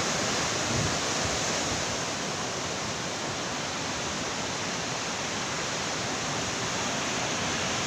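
Heavy surf on a beach in a storm, with wind, blending into one steady, even rush of noise without separate wave breaks standing out.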